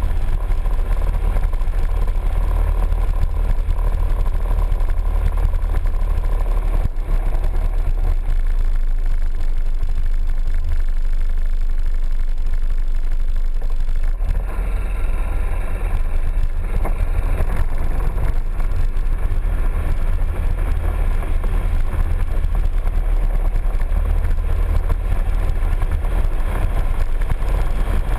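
Piaggio MP3 three-wheeled scooter riding at low speed, its engine and road noise picked up by a camera mounted on the scooter as a steady low rumble. The higher part of the sound thins out briefly about halfway through.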